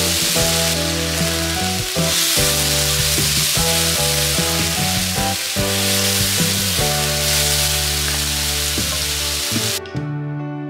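Sliced meat sizzling as it stir-fries in a hot wok, turned over with a wooden spatula. The sizzling cuts off suddenly near the end.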